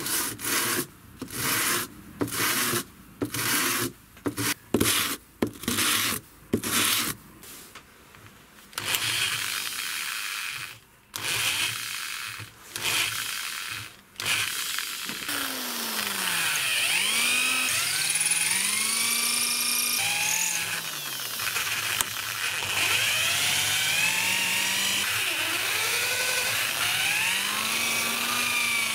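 A hardwood knife-handle block is rubbed back and forth on a flat sheet of sandpaper in repeated strokes, about one to two a second, then in a few longer strokes. About halfway through, a handheld electric drill starts boring a hole into the end of the block, its motor pitch rising and falling again and again.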